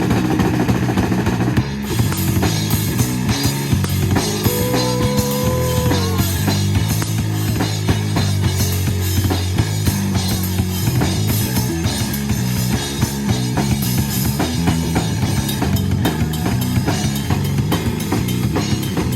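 Live rock band playing an instrumental passage: drum kit keeping a steady beat with kick and snare over a bass line, with a single held note standing out about four and a half seconds in.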